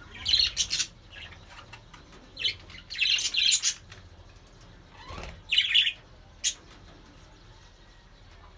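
Budgerigars chirping and warbling in several short, loud, high-pitched bursts, the last a single sharp chirp about six and a half seconds in.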